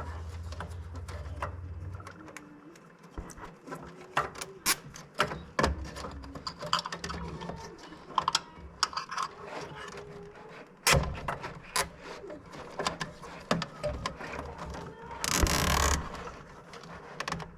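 Irregular small clicks, taps and rattles of hands handling wires and parts in an electrical control panel, with a short rasp about fifteen seconds in.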